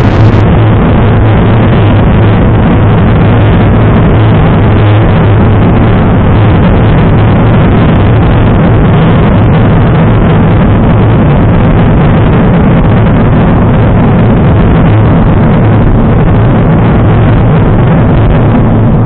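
Wind rushing over the microphone of a Garmin VIRB action camera mounted on a road bike riding at about 30 to 40 km/h, a loud, steady rush with no break.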